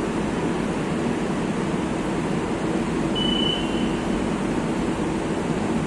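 Madrid Metro series 2000A train standing at the platform with its on-board equipment running: a steady hum under a rushing noise. A short high beep sounds a little past halfway.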